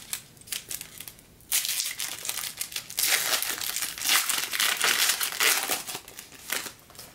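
A trading card pack's wrapper being torn open and crinkled by hand: a run of crackling, with louder stretches starting about one and a half and about three seconds in.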